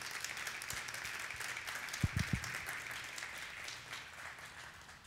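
Audience applauding, dying away near the end, with a few low thuds about two seconds in.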